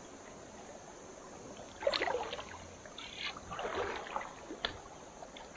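Water splashing and sloshing in a few irregular bursts, starting about two seconds in, with one short sharp click about a second before the end.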